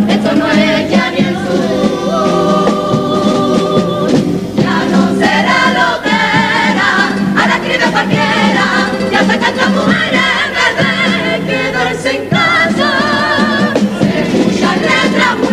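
Mixed women's and men's comparsa chorus singing a Cádiz carnival pasodoble in Spanish, the voices wavering with vibrato over an accompaniment of guitars and a drum.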